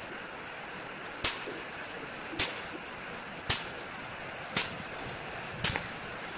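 .22LR rifle firing five sharp shots, about one a second, over the steady hiss of rain.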